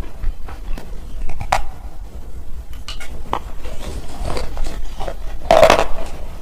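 Hard, brittle black slate chips being crunched close to the microphone: scattered small clicks and crackles, then a loud, longer crunch about five and a half seconds in.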